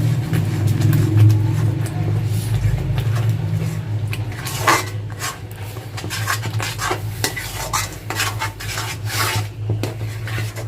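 A spatula stirring and scraping a thick yogurt and cashew-paste masala in a cooking pan, with repeated clinks and scrapes that come thicker from about halfway through. A steady low hum runs underneath.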